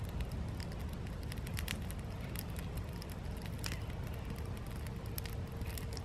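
Small wood fire crackling in a folding steel camp stove as freshly lit tinder and split kindling catch, with sharp irregular pops over a steady low rumble.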